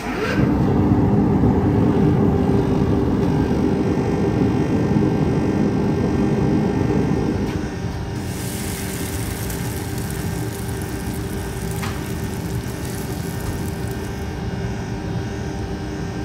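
Forge fire roaring steadily with a constant hum. About eight seconds in, the red-hot steel blade goes into engine oil for quenching, and a hissing sizzle runs for several seconds over the forge noise.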